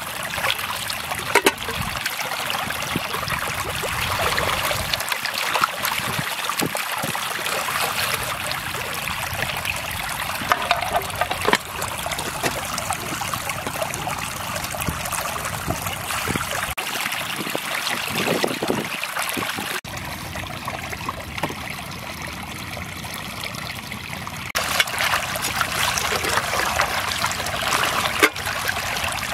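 Water trickling and splashing as a metal mess tin is scrubbed and rinsed by hand, with a few light knocks of the tin. Near the end, water is poured out and splashes onto wet ground.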